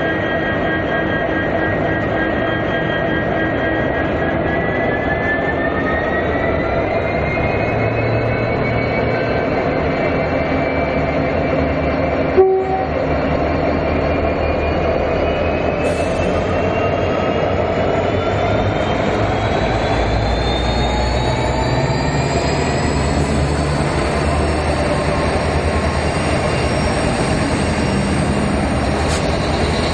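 A group of diesel-electric locomotives running light engine, their engines working with a steady rumble under a whine that climbs slowly in pitch over about twenty seconds. A sharp brief click about twelve seconds in.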